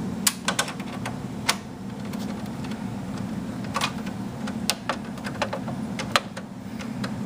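Irregular light metallic clicks and taps of a screwdriver and screws working on a desktop computer's motherboard and steel case, heard over a steady low hum.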